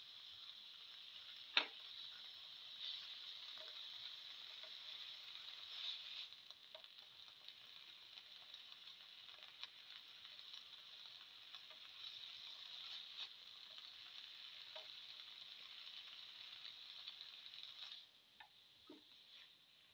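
Spinach and tomato sizzling faintly in a frying pan as they are stirred with a spatula, with scattered light clicks and scrapes of the spatula against the pan. The sizzle drops away near the end.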